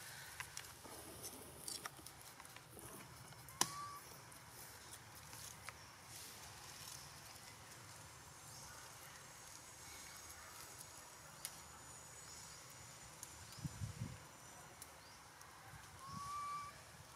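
Quiet outdoor ambience with scattered small clicks and a soft rustle, and two short high chirps, one about three and a half seconds in and one near the end.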